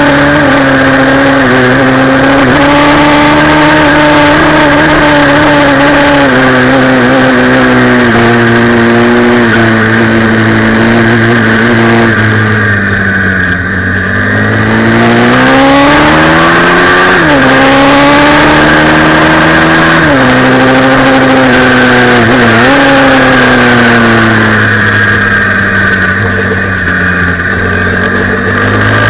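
Pit bike's single-cylinder engine at high revs, heard from on the bike. Its pitch sinks as it slows for corners and climbs again under throttle, with two quick drops at gear changes about two-thirds through.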